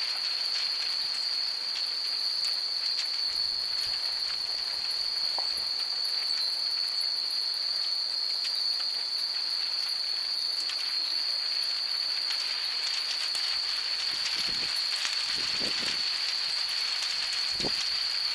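Hundreds of Japanese wind chimes (fūrin) tinkling irregularly in the breeze, a dense scatter of small light strikes that thickens in the last few seconds. A steady high-pitched whine runs underneath.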